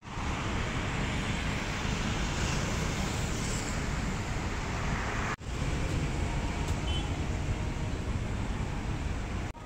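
Steady road traffic noise with a low rumble, cut off for an instant a little past halfway.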